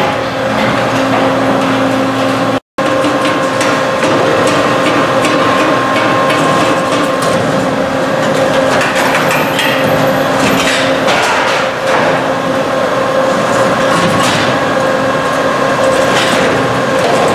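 Catalytic converter guillotine machine running with a steady multi-tone hum, over frequent irregular metal clanks and knocks as converters are fed in and sheared. The sound cuts out for a split second about three seconds in.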